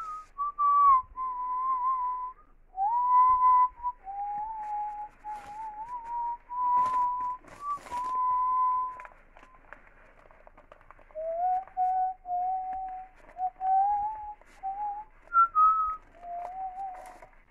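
A person whistling a tune: a single clear pitch moving through short melodic phrases with brief pauses, and a few faint handling knocks in between.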